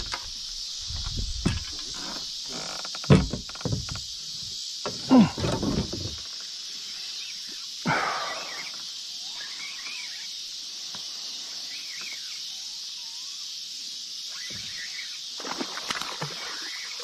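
Knocks and thuds on a small boat as the anchor is set down, a few loud ones in the first six seconds, with a short falling swish about eight seconds in, over a steady high background hiss.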